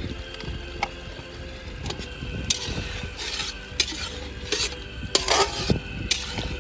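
A metal slotted turner stirring mutton karahi and freshly added yogurt in a steel karahi, scraping and clinking against the pan every second or so over a steady sizzle from the simmering gravy. The clinks and scrapes come thicker toward the end.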